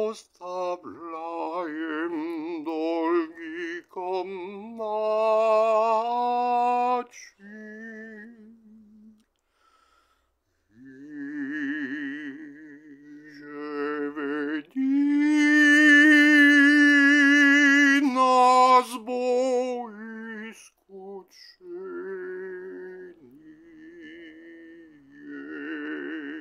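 A solo voice singing a slow, chant-like melody with a strong vibrato, in held notes broken by short pauses; the loudest is one long sustained note a little past halfway.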